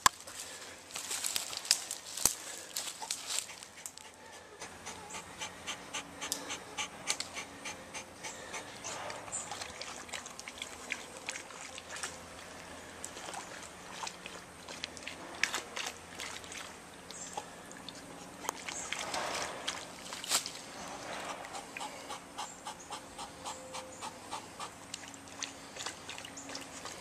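A dog panting in a quick, steady rhythm as it swims, with water sloshing around it.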